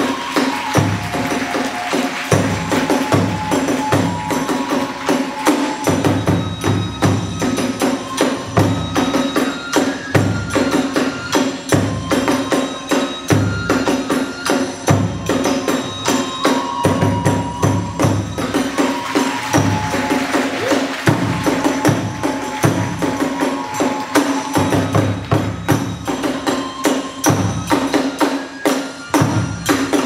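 Hiroshima kagura hayashi music: drum and hand cymbals struck in a fast, driving rhythm, with a melody of held notes that step in pitch over it.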